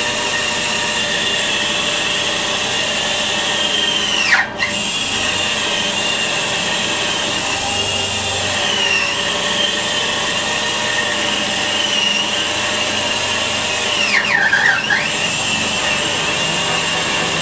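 Band saw driven by a 2 HP three-phase motor on a variable frequency drive, ripping a thick sugar maple slab with a 3/16-inch 10 TPI blade: a steady high whine over the cutting noise. The whine drops sharply in pitch twice, about four seconds in and again around fourteen seconds.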